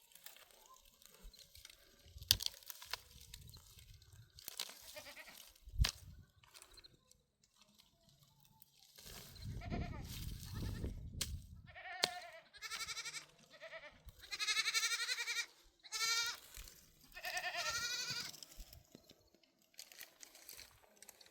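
Goats bleating, several quavering calls in quick succession in the second half, with a few sharp knocks earlier.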